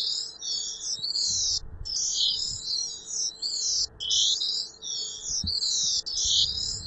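Image-to-sound software for the blind sonifying a live video picture of a face: a dense, chirping electronic warble of many high tones. It repeats as one scan of the picture about every two seconds, with a brief break between scans.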